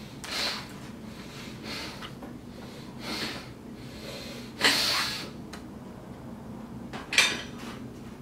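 A weightlifter breathing hard in a series of forceful, noisy breaths while bracing under a loaded barbell, about one every second or so. Two louder, sharper exhales come about halfway and near the end.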